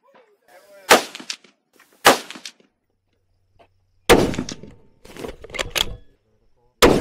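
Springfield Armory Model 2020 Waypoint .308 Winchester bolt-action rifle firing four single shots, one to three seconds apart. A few fainter sharp cracks fall between the last two shots.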